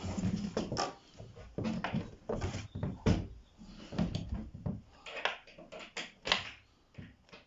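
Irregular knocks, clunks and rustling as flat-pack wardrobe boards and parts are handled during assembly, with several sharper knocks a little after three seconds in and around six seconds in.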